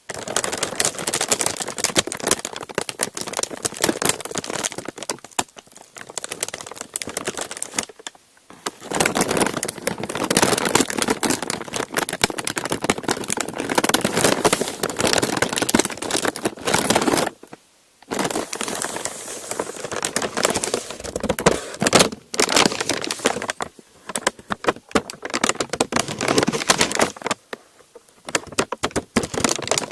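Close-miked crinkling and crackling of parchment paper being handled and scrunched, in dense spells broken by brief pauses.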